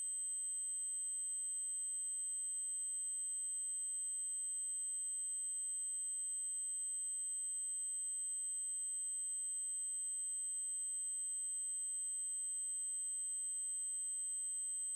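Continuous electronic 8192 Hz triangle-wave tone, a single very high pitch held perfectly steady.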